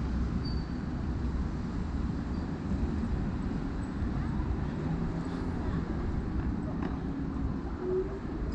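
Busy city street ambience: a steady low rumble of traffic, with a couple of brief high chirps in the first few seconds.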